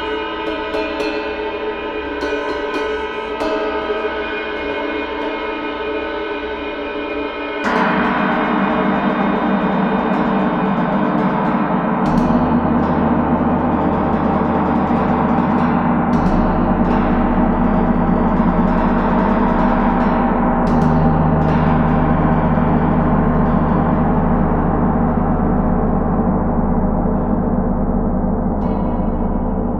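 A gong ringing with many overlapping sustained tones. A harder stroke about eight seconds in makes it louder, and a deep low hum then builds beneath the shimmer, deepening further as it is played on.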